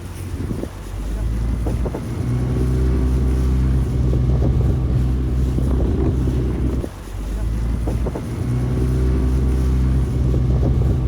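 Boat engine running steadily, with wind noise on the microphone; the engine sound breaks off briefly about seven seconds in, then carries on.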